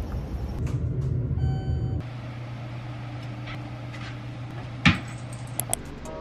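Low rumbling outdoor ambience, like distant traffic, for about two seconds, then the steady low hum of a room with a sharp knock near the end.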